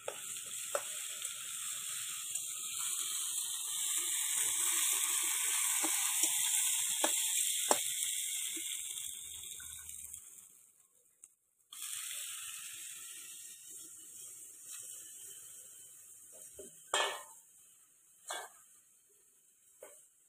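Food sizzling in hot oil in a steel kadai. It starts loud all at once and fades over several seconds, then sizzles again more softly and dies down. The steel ladle knocks against the pan a few times, most sharply twice near the end.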